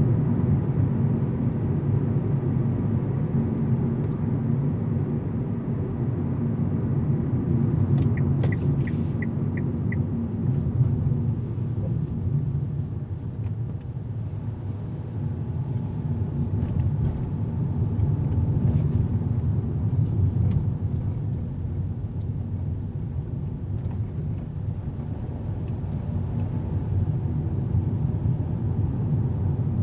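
Steady low rumble of a car's engine and tyres, heard from inside the cabin while driving. About eight seconds in comes a quick run of about six short high beeps.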